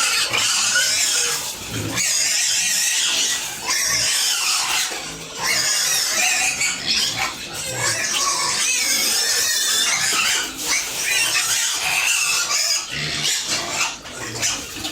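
Pigs squealing loudly and almost without pause, several high, wavering cries overlapping, with brief lulls now and then.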